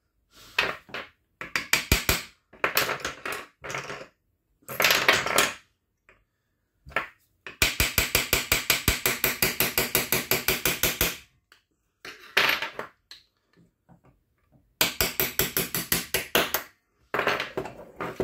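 Small hammer tapping on metal to drive a press-fit pin out of an airsoft M16 receiver from its unknurled side. It goes in short bursts of sharp taps, with a long run of rapid, even taps, about nine a second, near the middle.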